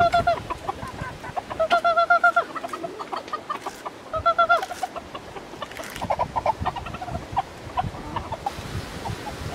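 Chickens clucking. Three quick runs of short, rapid calls come in the first five seconds, followed by scattered, softer single clucks.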